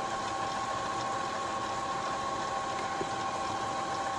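Epson ET-2850 EcoTank printer running its initial ink charge after the tanks are filled: a steady mechanical whir with two held tones.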